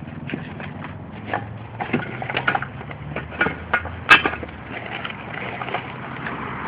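Irregular light knocks and clatter, about a dozen, the sharpest about four seconds in, over a steady low hum.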